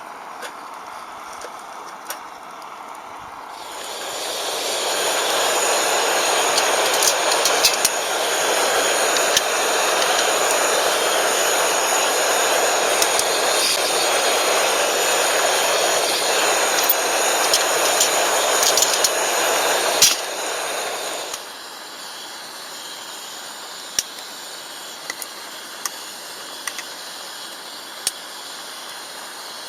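A loud steady hiss that swells up about four seconds in, runs with scattered clicks and crackles, and stops fairly suddenly about twenty-one seconds in.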